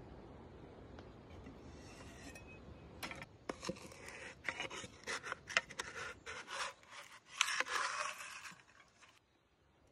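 Wooden spatula scraping and stirring caramelized onions around a dark metal frying pan: a run of quick, uneven scrapes that starts about three seconds in and stops shortly before the end.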